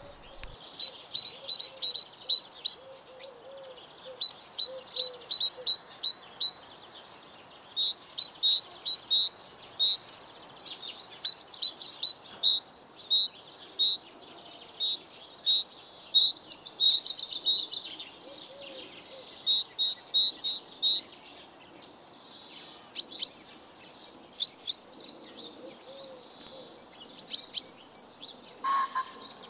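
Songbirds singing: phrases of rapid, high chirping notes, each a few seconds long, separated by short pauses.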